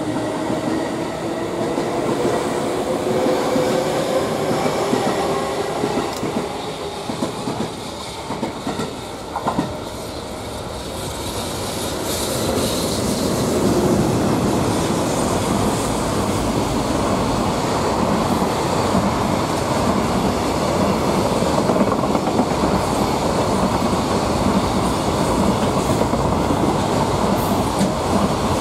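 JR Freight EH500 electric locomotive hauling a container freight train past at speed. A humming tone rises slowly as it approaches, then the container wagons roll by with steady clickety-clack of wheels over rail joints, louder from about twelve seconds in.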